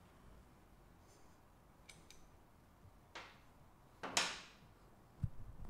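Faint handling noises of a metal cam chain being held and moved over an engine block: a few light clicks, then two short rushing sounds a little past halfway, and a dull thump near the end.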